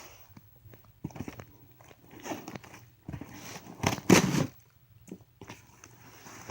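A box being cut open and its packing handled: irregular scraping and crunching bursts, the loudest about four seconds in.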